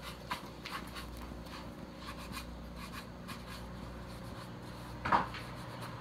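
Light rubbing and scattered small taps as a plastic helmet is handled and wiped down, with one louder bump about five seconds in. A steady low hum runs underneath.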